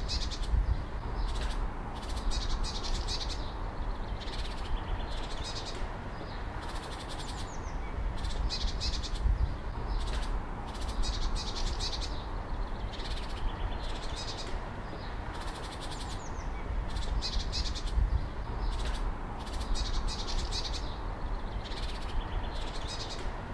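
Wild birds chirping and calling, with clusters of quick high notes every second or two over a steady background hiss and a low rumble.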